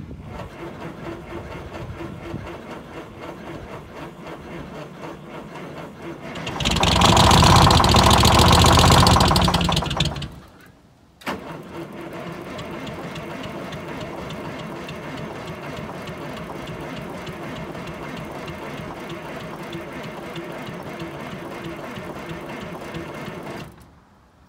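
Straight-piped 8V71 Detroit Diesel two-stroke V8 being cranked by its starter in an ether-assisted cold start at 15 °F. About six seconds in it fires and runs loudly for about three and a half seconds, then dies. The starter cranks it again until it stops near the end, without the engine catching.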